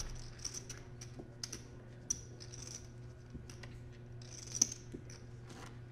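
Poker chips clicking against each other as players handle and riffle their stacks: a run of irregular light clicks, with one sharper click about four and a half seconds in.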